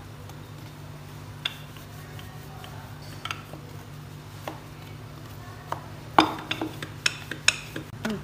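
Hands patting and pressing a ball of paratha dough flat on a floured wooden board, giving a few scattered light taps, then a quick run of sharper knocks and clicks in the last two seconds. A steady low hum runs underneath.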